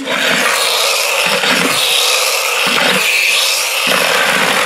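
Wheels of a toy school bus rolling over a hardwood floor as a hand pushes it along, a steady, noisy rush that comes and goes unevenly.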